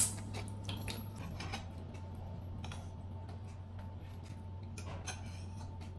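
Metal cutlery clinking on plates during a meal: one sharp clink right at the start, then scattered faint clicks and scrapes over a low steady hum.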